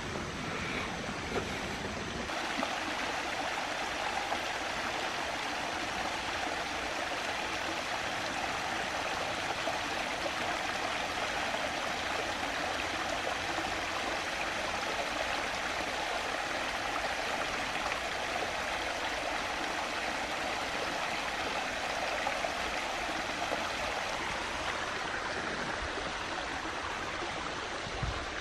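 Small shallow creek running steadily over rocks and a little waterfall, an even rush of flowing water.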